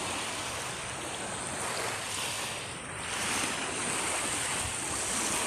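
Small waves washing onto the beach shore, a steady rushing wash that swells a little about three seconds in and again near the end.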